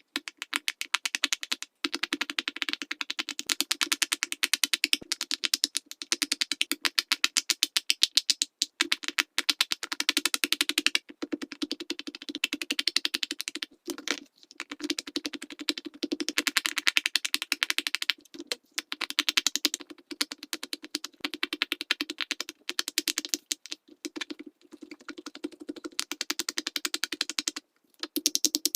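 Silicone pop-it fidget toy bubbles being pushed through in quick succession, a rapid run of soft hollow pops many times a second, with a few brief pauses.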